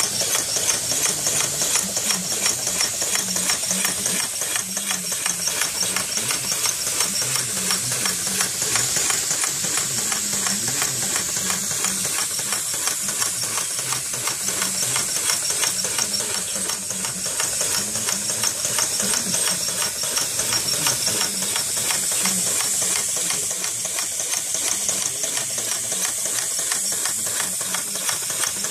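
Small brass twin-cylinder model vacuum engine, driven by a vacuum cleaner's suction through a hose, running fast and steadily: a rapid, even mechanical clatter over a constant hiss.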